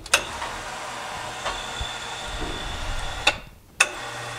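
Electric crane hoist lifting a heavy cast-iron part out of a parts-washer tank: the motor runs in bursts, each start and stop marked by a sharp metallic clank, with a short pause about three seconds in.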